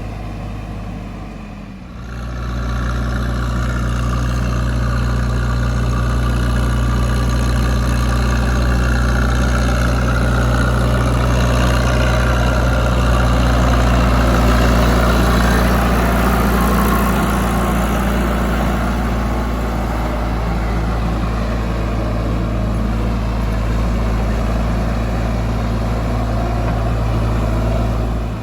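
JCB 3DX backhoe loader's diesel engine running steadily with a low, even drone. It gets clearly louder about two seconds in and swells slightly around the middle.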